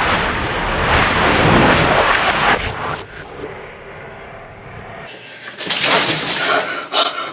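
Melted ice water poured from a plastic tub splashing down over a person's head and shoulders, in two pours: a steady rush that stops about three seconds in, then, after a quieter stretch, an uneven splashing pour from about five seconds in.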